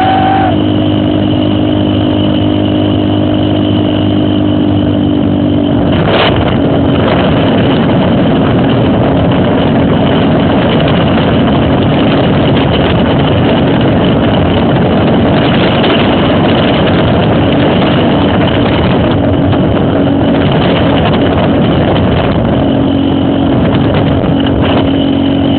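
Trail motorcycle engine running at a steady idle, then about six seconds in it picks up and runs harder and rougher for the rest of the time.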